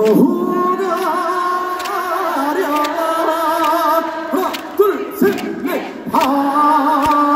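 A man singing a Korean trot song unaccompanied through a concert PA, holding long notes with heavy vibrato and breaking off briefly about five seconds in.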